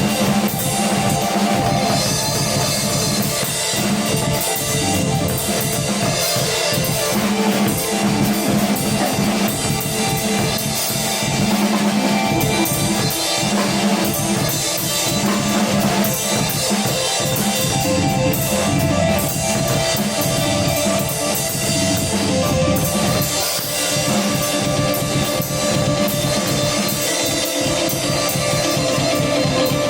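Live instrumental band music: a drum kit keeps a steady beat under guitar and held, sustained tones, played at full volume.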